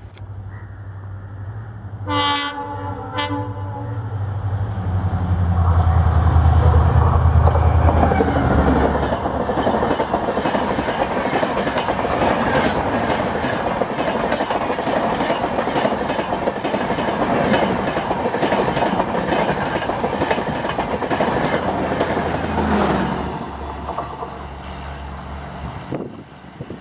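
A WDG4 (EMD) diesel locomotive sounds a short high-pitched horn blast about two seconds in. Its two-stroke diesel engine then rumbles heavily past close by, followed by a long rake of LHB coaches clattering over the rail joints. A second low rumble passes near the end as the train draws away.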